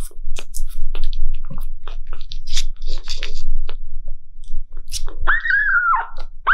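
Quick, irregular wet clicks and smacks of a baby sugar glider sucking milk from a feeding bottle's nipple. Near the end a kitten meows once, a call of about a second.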